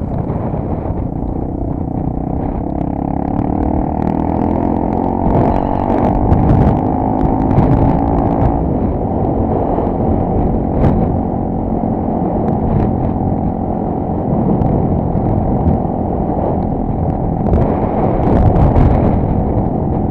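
Honda Tornado 250's single-cylinder four-stroke engine pulling the bike along, its pitch rising from about two seconds in to about eight seconds in as it accelerates, with wind noise on the microphone throughout.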